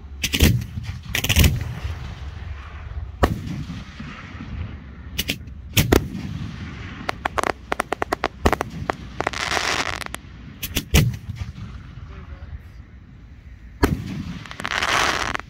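Aerial firework shells bursting with loud, sharp bangs at irregular intervals, a rapid run of pops about halfway through, and two longer stretches of hissing crackle between the bangs.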